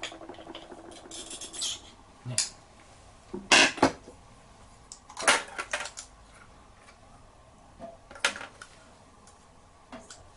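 Hand-tool and small-part clinks from work on a VFR400R carburetor: a screwdriver and small metal and plastic carburetor parts knocking against each other and a stainless-steel tray in a handful of separate sharp clicks and clatters.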